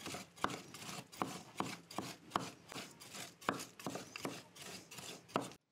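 Two large kitchen knives chopping raw meat and onion on a wooden cutting board, mincing the filling by hand. The blades knock on the board in a quick, uneven run of about four to five chops a second, stopping abruptly near the end.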